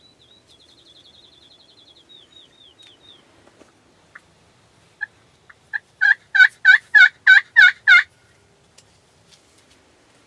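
Turkey yelps made on a hand-held pot call worked with a wooden striker, imitating a hen. A few soft notes build into about seven loud yelps, about three a second, each breaking from a higher to a lower note. A faint, fast songbird trill comes first.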